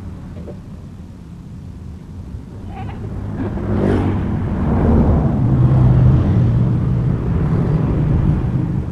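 Engine of a motorbike built around an old diesel engine converted to run on petrol, running. It grows louder about four seconds in and then holds a steady pitch.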